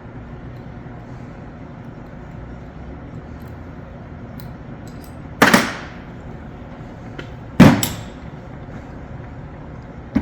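Two loud, sharp metal knocks about two seconds apart, with a few light clicks, as tools and cable-cutter parts are handled on a workbench, over a steady background hum.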